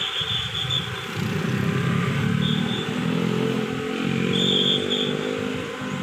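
Sumitomo excavator's diesel engine working under load while lifting a suspended load. The engine note climbs about a second and a half in, holds, then eases off near the end. Several short, high squeals sound over it.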